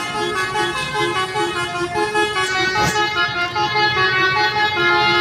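Basuri V4 telolet bus horn playing a quick melody, its multi-note tones stepping from pitch to pitch. A short knock sounds about three seconds in.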